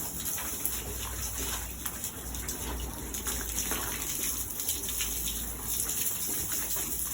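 Water running and splashing steadily, with many small splatters, as pigs are washed down in their pen.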